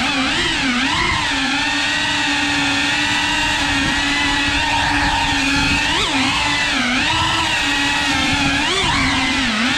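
FPV racing quadcopter's brushless motors and propellers whining steadily, the pitch dipping and surging back briefly as the throttle changes: just after the start, twice around the middle, and twice near the end.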